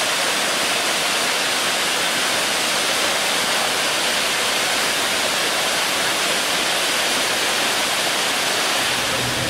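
Helton Creek Falls' upper section pouring into its pool: a steady, even rush of falling water with no breaks.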